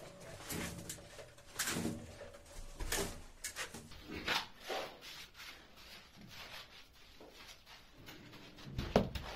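Scraping and rubbing of damp sand-and-cement screed being spread and worked by hand and straightedge, in irregular strokes that grow louder near the end.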